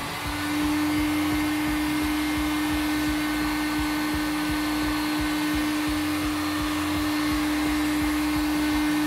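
Electric heat gun running: a steady rush of blown air with a steady motor hum.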